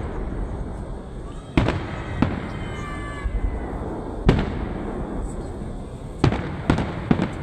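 Fireworks display shells bursting overhead: about six sharp bangs at uneven intervals over a steady low rumble of background noise.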